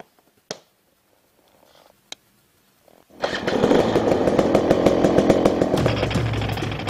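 Two sharp clicks as the camera is handled. Then, about three seconds in, loud heavy rock music with distorted guitar and a fast driving beat starts abruptly.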